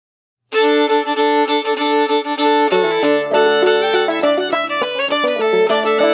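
Old-time fiddle music starts suddenly about half a second in, the fiddle playing a tune on sustained bowed notes; a lower-pitched part joins a little before the middle and the playing gets busier.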